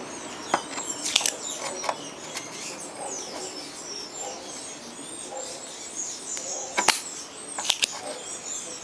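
Spring-loaded desoldering pump snapping sharply a few times, about a second in and twice near the end, as solder is sucked from the joints of a capacitor on a TV power-supply board. Birds chirp faintly throughout.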